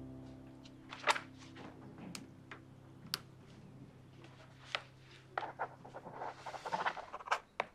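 Sustained low notes of soundtrack music fading out over about six seconds, with a few soft clicks scattered through and a brief soft noise near the end.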